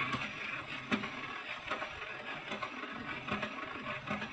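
Surface noise of an old recording: a steady hiss with scattered crackles and clicks, one louder click about a second in.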